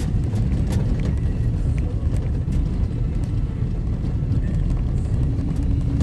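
Car driving on a broken, patched road surface, heard from inside the cabin: a steady low rumble of engine and tyres with a few faint clicks scattered through it.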